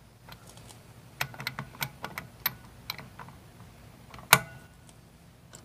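A few light, irregular metal clicks as a socket tool is fitted over a motorcycle clutch centre nut, then one loud sharp crack about four seconds in as the tight nut breaks free.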